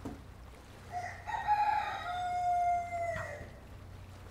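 A single long rooster crow, starting about a second in and lasting about two seconds, held on one pitch before dropping away at the end.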